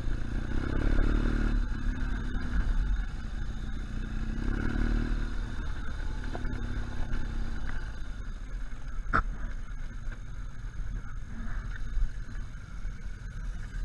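BMW R1200GS Adventure's flat-twin engine pulling at low speed over a rough stony track, its note rising twice in the first few seconds and then settling. The bike clatters over the stones, with one sharp knock about nine seconds in.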